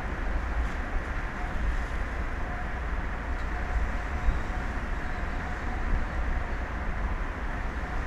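Wind buffeting the microphone: a steady deep rumble with a hiss above it.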